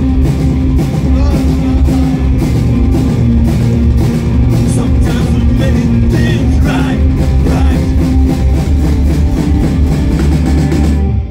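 Rock band playing live and loud: electric guitars, bass and drum kit keep a steady beat. The music stops suddenly near the end.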